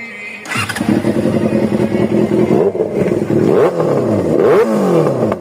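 Yamaha XJ motorcycle's four-cylinder engine running loudly through a bare exhaust pipe, revved several times so its pitch climbs and falls with each throttle blip. The engine sound comes in about half a second in.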